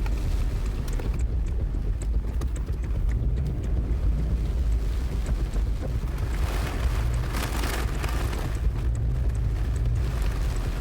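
Steady low rumble of wind and road noise, with a louder swell of hiss about seven seconds in.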